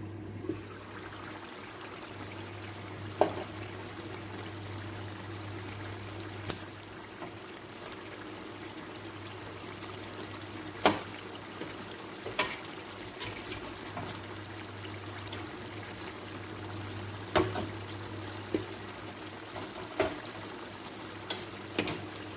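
Pot of soup bubbling steadily on the stove, with a low steady hum, while pieces of meat are added; about a dozen sharp clinks and knocks, utensils against the pot, stand out now and then.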